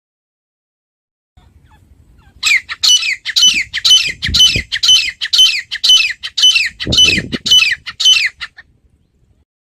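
Grey francolin calling: a fast, even run of shrill notes, each falling in pitch, about two to three a second. It starts a couple of seconds in and stops near the end.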